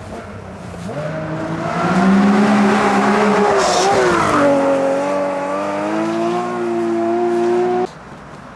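Classic Porsche rally car's engine at high revs, getting louder as it approaches and passes close, its pitch dipping as it goes by about four seconds in, then holding high revs as it pulls away. The sound cuts off abruptly near the end.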